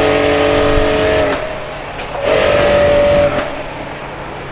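StarQ electric pressure washer running, its motor humming and its water jet hissing against the car's wheel and lower body. It cuts out about a second in, starts again about two seconds in, and cuts out again about three and a half seconds in, each time as the gun's trigger is released.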